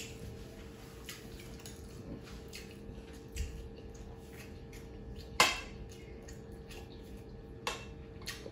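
Small table-top clicks and knocks from eating off a plate, with one sharper clink about five seconds in, over a faint steady hum in a quiet kitchen.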